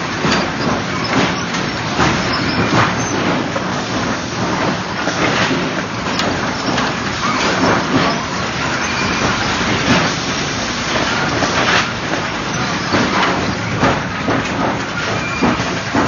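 Automatic sawmill lumber stacker running: a steady machinery din with frequent, irregular wooden clacks and knocks as boards are pushed along and dropped into a layer on the stack.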